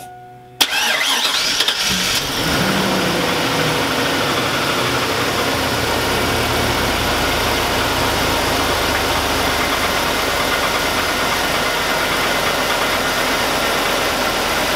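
Chevrolet Avalanche 5.3L Vortec V8 starting about half a second in, catching at once and settling into a steady idle. The engine has a knock that the owner takes for piston slap or perhaps a rod knock, and he also suspects lifters.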